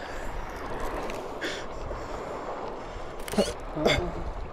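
Steady wind and water noise in an open boat, with a short hiss about one and a half seconds in and a few brief vocal sounds near the end.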